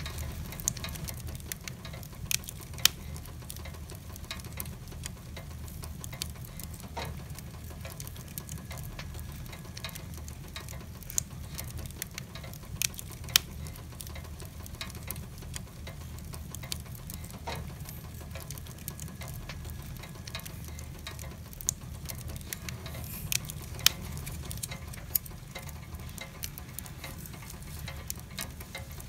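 Logs burning in a wood fireplace: a steady low rumble with a dozen or so sharp crackles and pops scattered through it.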